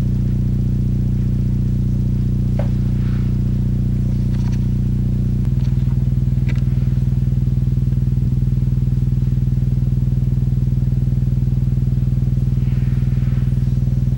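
A Tang Band 5¼-inch subwoofer driver in a 3D-printed enclosure plays a 15 Hz square-wave test tone as a steady low buzzing tone. About five and a half seconds in, it steps down to a 10 Hz square wave with a slow pulsing.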